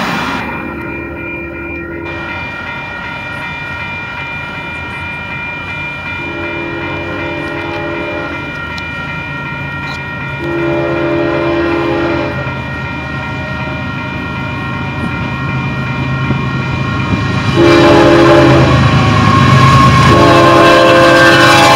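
Union Pacific diesel freight locomotive sounding its horn for a grade crossing: five blasts, the fourth shorter, the last still sounding at the end, over steady crossing-bell ringing. The low rumble of the locomotive grows louder in the last few seconds as the train reaches the crossing.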